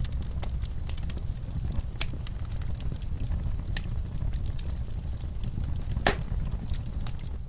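Wood fire in a fireplace crackling, with small pops scattered over a steady low rumble. A sharper pop comes about two seconds in and a louder one about six seconds in.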